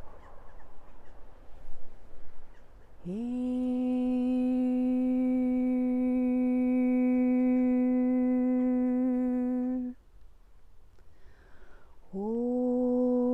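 A voice humming one long, steady note for about seven seconds, sliding up into it at the start and stopping abruptly. A couple of seconds later it slides up into the same note again, in the spirit of light-language toning.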